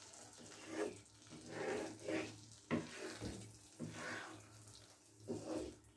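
A spatula stirring thick, sticky mango pickle in a non-stick frying pan, making repeated wet squelching and scraping strokes about once a second.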